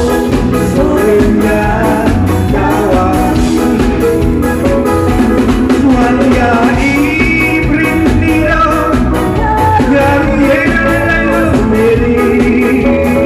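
A man singing into a microphone over a live band with a steady beat, amplified through a PA system.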